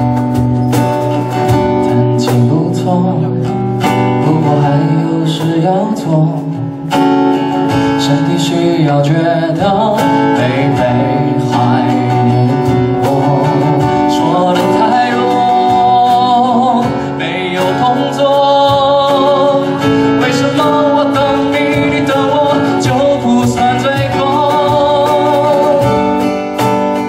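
Live acoustic guitar strummed and picked, with a man's voice singing a sustained, wavering melody over it.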